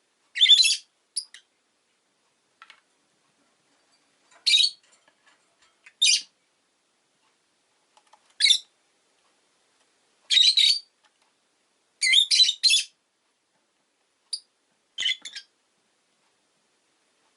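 Rosy-faced lovebird giving short, shrill chirping calls in scattered bursts, about a dozen in all, some in quick runs of two or three.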